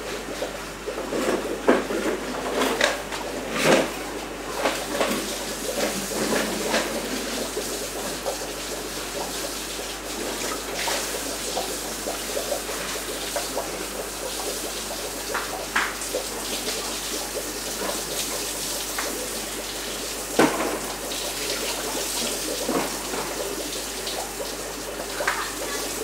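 Aquarium water running and splashing steadily, as from a tank's filter or aeration. A few sharp knocks and clicks are scattered through it, mostly in the first few seconds, with a loud one about twenty seconds in.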